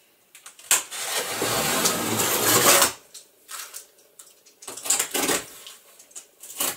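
Cardboard box of stretched canvases being opened by hand: a loud rasp of cardboard lasting about two seconds, followed by lighter rustling and knocks of the cardboard being handled.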